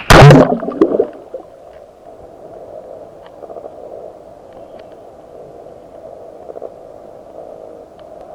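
A camera plunging into seawater: a loud splash and gurgle of bubbles in the first second, then steady muffled underwater noise with a few faint clicks.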